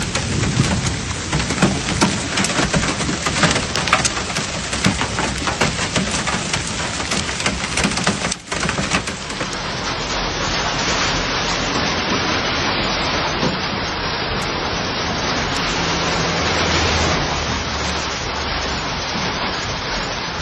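Heavy rain, with many sharp drop strikes in the first eight seconds; after a cut, a steadier even rush of rain.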